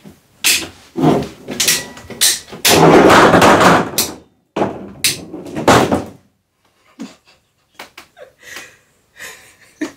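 Ratcheting PVC pipe cutter squeezed in quick strokes, each a sharp click and crunch, as its blade bites through a 1¼-inch PVC pipe. About three seconds in comes a louder stretch of crunching as the cut goes through, then two more knocks a little later.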